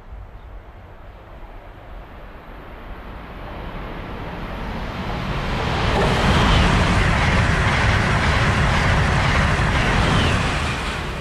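A train passing at speed: its rumble and wheel noise build over a few seconds, stay loud for about four seconds, then begin to ease off near the end.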